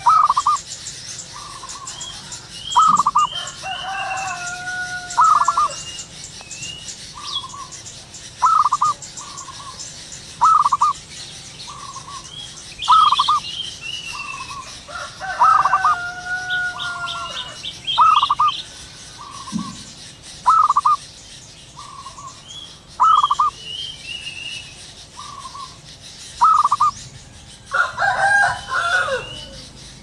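Zebra dove calling: a short coo repeated about every two seconds, often as a faint note followed by a louder one. Other small birds chirp and twitter in the background.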